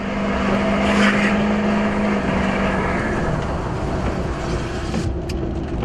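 A car's engine pulling steadily, heard from inside the cabin, over a steady hiss of tyres and spray on a rain-soaked road. The engine tone holds for about the first two to three seconds, then fades under the road noise.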